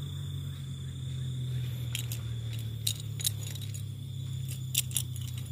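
Light metallic clinks and taps from gear being handled, a few at a time from about two seconds in, over a steady low hum and a thin, steady high whine.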